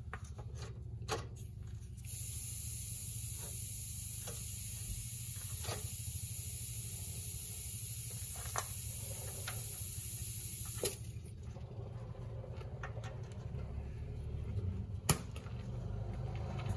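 A low, steady engine rumble, with a loud hiss of spraying from about two seconds in that cuts off abruptly about eleven seconds in, and a few light clicks.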